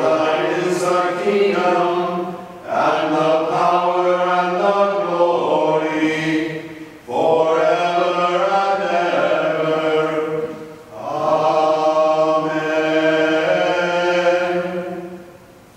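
Voices singing a liturgical chant in four long, sustained phrases with short breaks for breath between them, stopping just before the end.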